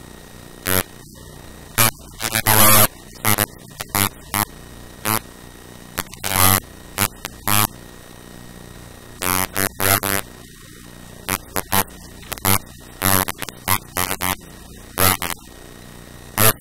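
Keys of a TI-84 Plus graphing calculator being pressed, many sharp clicks at an irregular pace, some in quick pairs, over a steady electrical hum.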